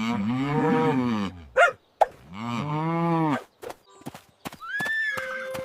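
Cow mooing twice, two long calls of about a second each. Near the end comes a short rising-and-falling whistle-like tone.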